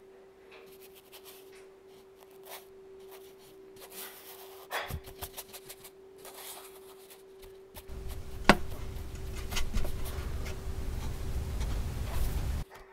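Paintbrush loaded with casein paint brushing and dabbing on sketchbook paper in soft scratchy strokes, over a steady low hum. About eight seconds in a low rumble comes up and runs until just before the end, with a sharp click shortly after it starts.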